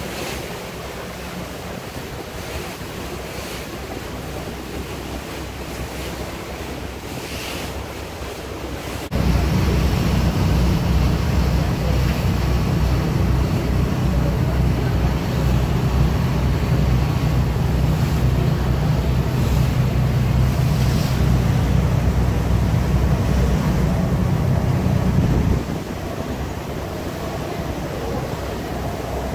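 Wind and churning water heard from a moving boat. About a third of the way in, a heavy low rumble of wind buffeting the microphone starts suddenly. It stops just as abruptly a few seconds before the end.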